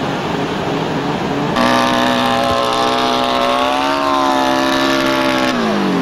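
Snowmobile engine running: a low, rough engine note that changes abruptly about one and a half seconds in to a steady, high engine note held for about four seconds. The note rises slightly and then drops in pitch near the end as the throttle comes off.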